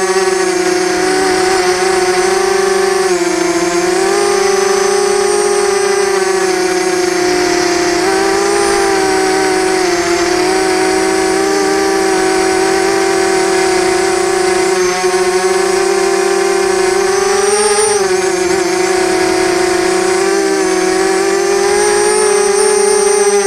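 Quadcopter's electric motors and propellers, heard from its onboard camera: a loud, steady buzzing hum whose pitch drifts up and down with throttle, rising briefly about three seconds in and again near eighteen seconds.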